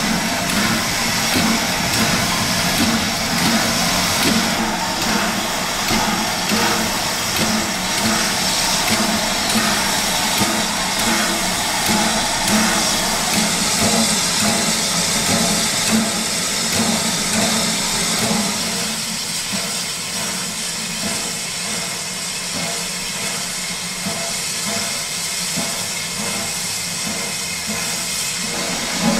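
Steam locomotive letting off steam: a steady, loud hiss with a faint regular pulsing underneath, easing slightly in the second half.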